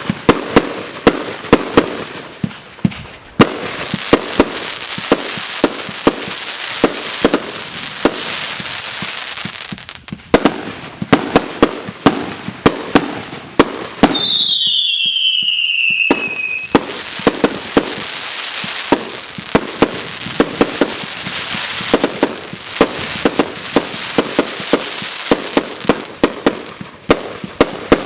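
Consumer fireworks going off: a rapid, continuous string of sharp bangs and crackling. About halfway through, a single whistle falls in pitch for about two and a half seconds.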